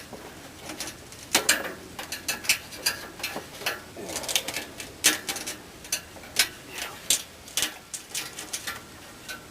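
Irregular sharp clicks and scrapes of a steel hemostat working inside a wall cavity, clamping and pulling out dead birds and debris.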